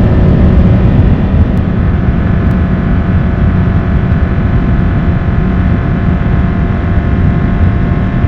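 Subaru WRX STI's turbocharged flat-four boxer engine droning at a steady highway cruise at a constant pitch, over loud road and wind noise.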